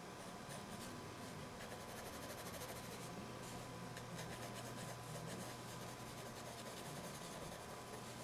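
Pencil scratching on drawing paper in quick, repeated shading strokes, laying in dark tones. The strokes are faint, over a steady low hum.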